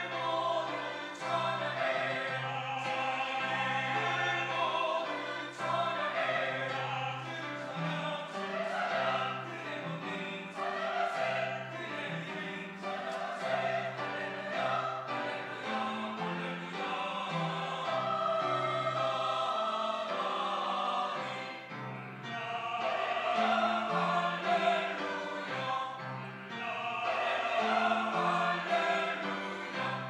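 Mixed church choir of men's and women's voices singing a sacred piece in harmony, with a brief lull about two-thirds of the way through before the voices swell again.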